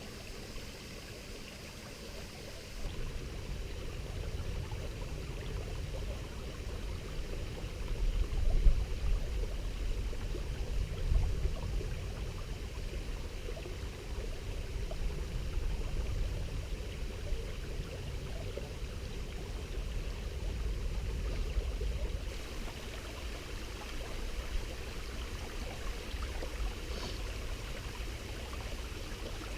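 Steady rushing of running water, with a low rumble underneath that swells a few times and is strongest about eight to twelve seconds in.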